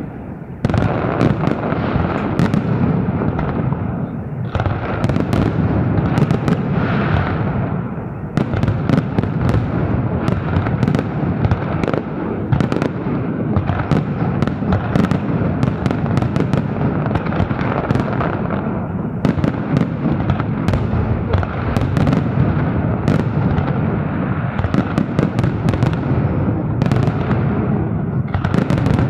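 Fireworks display: a dense, unbroken barrage of shell bursts, sharp bangs and crackle over a low rolling rumble, with only a brief lull right at the start.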